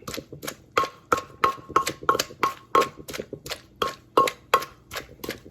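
Pestle pounding long bean salad in a mortar: a steady rhythm of knocks, about three a second, each with a short ring.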